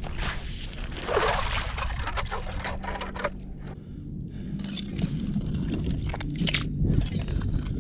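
Hand ice auger grinding through lake ice, with a dense scraping rush about a second in. After a short lull, from about halfway, a perforated metal ice scoop scrapes and clinks as it lifts ice chips and water out of the freshly drilled hole.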